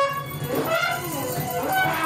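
Live music from a small ensemble of tuba, trumpets and fiddles playing together, with pitches that slide up and down over a steady low note.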